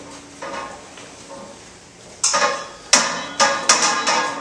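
Steel dorm bed end clanking and rattling as it is carried and handled, with a few faint knocks at first and then a quick run of sharp metallic clanks from about halfway in.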